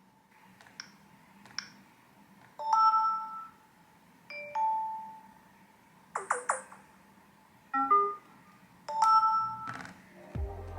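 Samsung One UI notification tones on a Galaxy S24 Ultra, played one after another: after two faint clicks, about five short electronic dings and chimes a second or two apart, several of them two-note.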